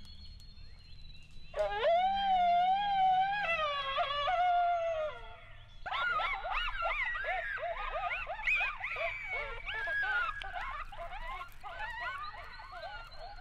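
Coyote vocalizations: one long wavering howl, then from about halfway a rapid, overlapping chorus of yips and yelps, the group yip-howl used to call coyotes in.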